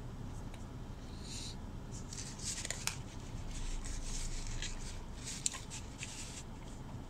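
Close chewing of a mouthful of Big Mac: small wet, crackly mouth sounds, busiest from about two seconds in until past six seconds, over a steady low hum.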